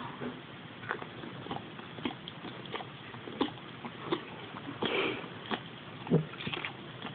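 A Staffordshire bull terrier snuffling and licking at its paw close up: irregular soft wet clicks, with a short snuffle about five seconds in.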